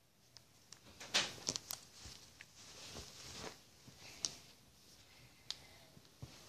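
Handling noise from a plastic toy doll being moved over bedding: soft rustling with scattered sharp clicks, busiest between about one and three and a half seconds in.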